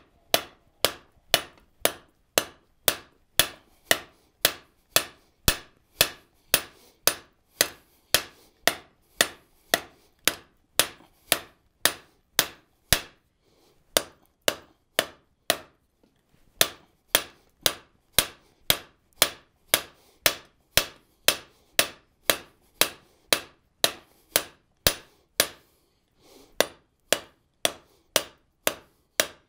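Hand hammer striking a red-hot steel bar on an anvil in steady, sharp blows, about two a second: half-face blows at the anvil's edge to set the boss of a tong blank. The hammering pauses for about two seconds midway and briefly near the end.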